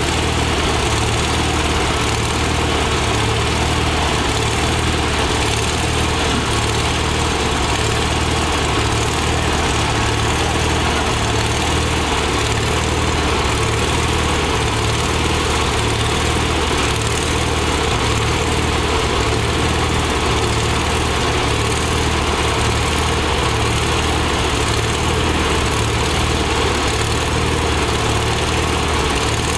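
An engine idling steadily, with an even low hum.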